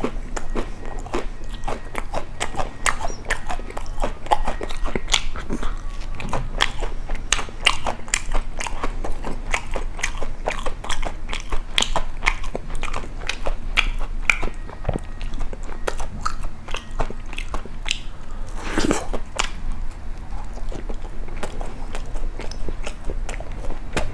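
Close-miked biting and chewing of crisp toast spread with Nutella and nuts. Sharp crunches come a few times a second, with one longer, louder crunch about three-quarters of the way through.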